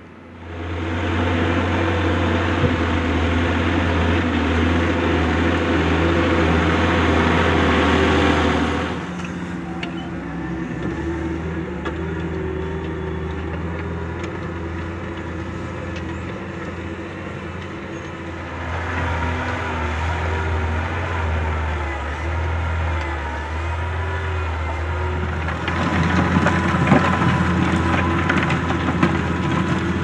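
John Deere 6210R tractor's six-cylinder turbo diesel (PowerTech PVX, 6.8 litres) running steadily under load while pulling a five-furrow reversible plough through soil. It is loud for the first third, drops back, then swells again as the tractor comes close near the end.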